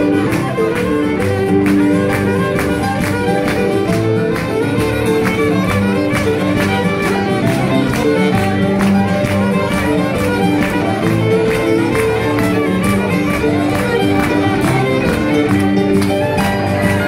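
Live Acadian fiddle tune, the fiddle playing a quick run of notes over acoustic guitar accompaniment, with sharp taps keeping a fast, even beat.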